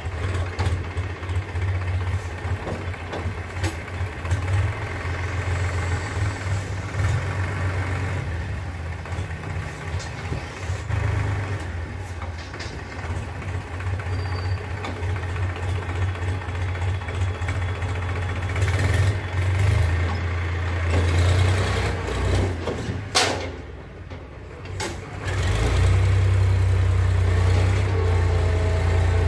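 Powertrac 439 tractor's diesel engine running steadily, with a few sharp knocks along the way. Near the end it dips briefly, then runs louder under load as the tractor pulls the tipping trolley.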